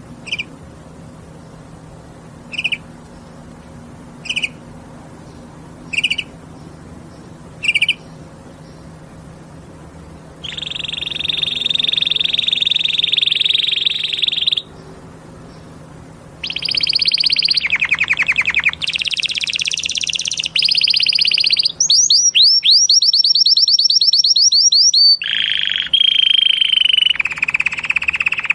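Canary singing. It starts with five short chirps about a second and a half apart, then a long fast rolling trill, then a run of varied trills and quickly repeated sweeping notes.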